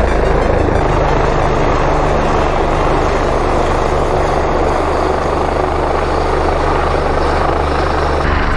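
Rescue helicopter hovering low overhead: loud, steady rotor and engine noise.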